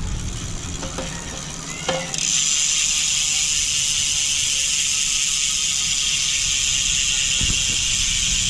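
Rear freehub of a Fnhon Blast folding bike's Deca wheel buzzing as the wheel spins freely on a stand. The pawls ratchet so fast that they blur into a steady, even buzz. It starts suddenly about two seconds in, after a couple of light clicks.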